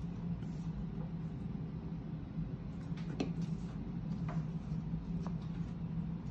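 Construction-paper strips handled and pressed onto a paper plate: a few soft taps and rustles over a steady low hum.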